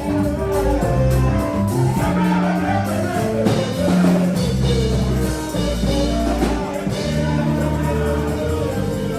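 Gospel worship music: singing over a band with drums and sustained bass and keyboard notes.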